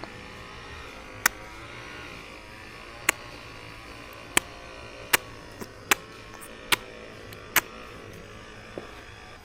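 Low steady electrical hum with about seven sharp clicks, roughly a second apart.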